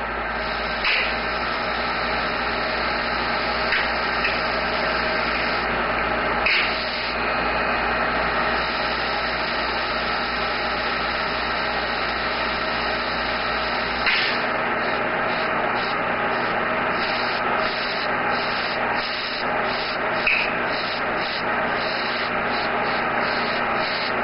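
Airbrush spraying paint with a steady hiss of compressed air, with a few brief pauses and flickers near the end. A low hum underneath stops about fourteen seconds in.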